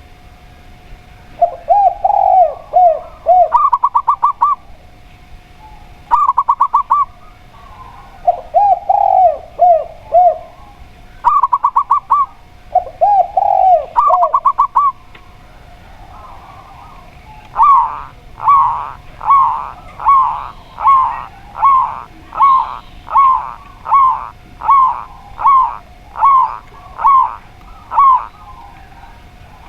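Zebra dove and spotted dove cooing. Lower multi-note cooing phrases alternate with higher, rapidly trilled bursts for the first half. After a short pause comes a run of about fourteen evenly spaced single coos, a little under one a second.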